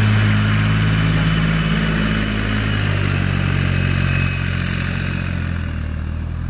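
An engine running steadily at idle, a low droning hum whose note shifts lower about three seconds in.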